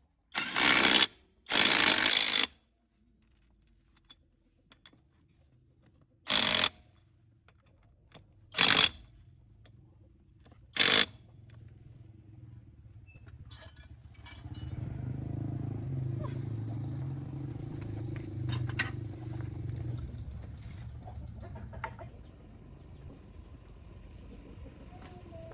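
Five short, loud bursts of a power tool in the first eleven seconds, then a low, steady mechanical hum for about six seconds that fades away.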